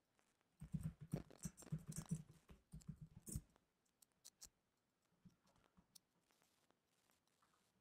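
Computer keyboard typing: a quick run of keystrokes for about three seconds, then a few separate clicks.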